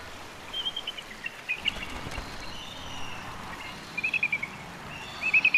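Bald eagle calling: thin, high chattering notes in quick runs, with a run about four seconds in and a louder one near the end, over a steady faint hiss.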